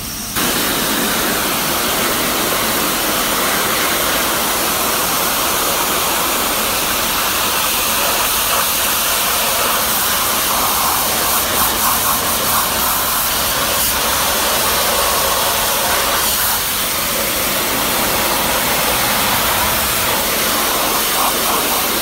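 Pressure washer spraying a high-pressure jet of water onto a boiled ram skull on concrete: a loud, steady hiss that cuts in suddenly at the start.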